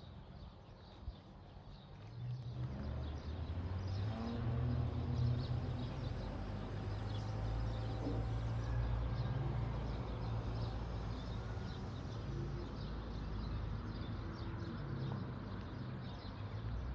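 Many small birds chirping in a date-palm grove, over a low steady rumble that comes in about two seconds in.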